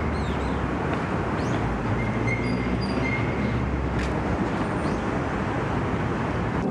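Steady outdoor ambience: an even rushing noise with a low hum underneath, and a few faint high chirps.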